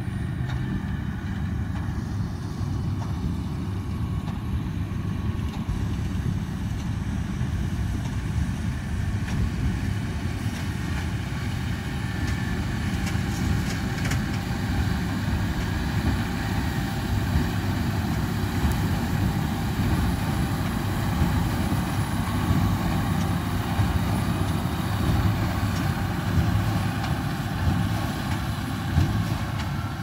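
Tractors pulling Krone big square balers through straw swaths: diesel engines running steadily under load together with the balers' machinery, a dense steady rumble.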